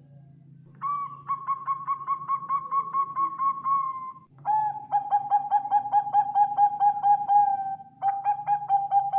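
Bangkok-type zebra dove (perkutut) singing: three phrases of rapid, evenly spaced cooing notes, about four a second, the first phrase a little higher in pitch than the other two.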